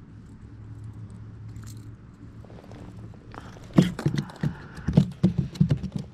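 Small rock bass flopping on the plastic floor of a kayak: after a few seconds of faint handling rustle, a quick, irregular run of knocks starts about four seconds in.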